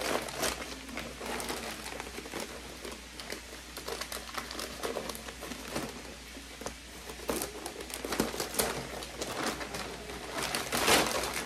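Plastic mailer bag crinkling and rustling as a package is opened and its contents handled, in irregular crackly bursts that are loudest near the end.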